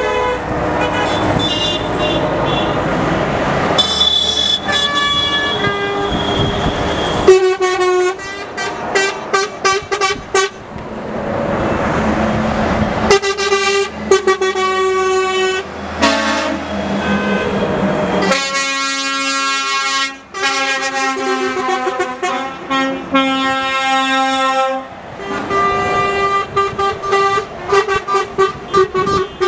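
A line of trucks passing one after another, sounding their horns: bursts of short repeated toots and, about two-thirds of the way through, a long held blast, with diesel engine and tyre noise between the horns.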